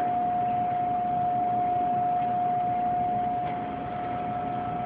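A steady whine held at one pitch over a constant rushing background noise, a little quieter near the end.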